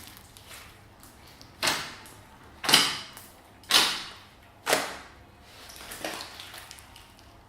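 Slime being mixed by hand: four sharp squelches about a second apart, each trailing off quickly, then a softer squish about six seconds in.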